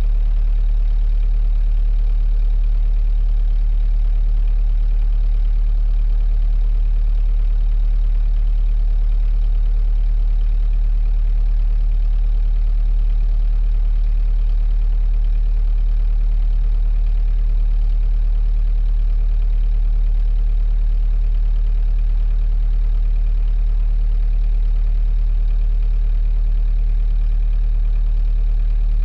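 A 45 ft sailboat's inboard diesel engine running steadily at a low, even speed, heard from inside the boat's rear cabin.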